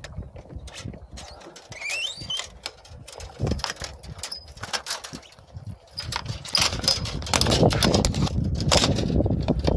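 Knocks, clicks and clatter of someone climbing aboard a moored sailboat, hands and phone bumping against the aluminium mast and deck, with a brief squeak about two seconds in. From about seven seconds in, wind buffets the microphone in a steady rumble.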